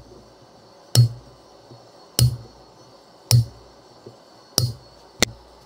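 Hand hammer striking a hot chisel set on hot half-inch square steel bar on the anvil, marking the groove lines for a cube twist. Five sharp blows about a second apart, the last two closer together.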